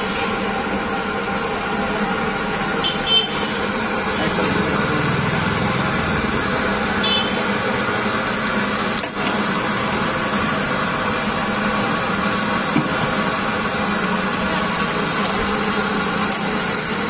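Busy street noise: traffic running, with voices in the background. Two short clinks come about three and seven seconds in.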